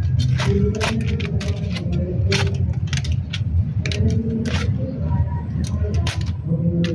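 Hand shears snipping the leaves off a cashew stem cutting: a run of sharp clicks, sometimes several in quick succession, over a steady low rumble.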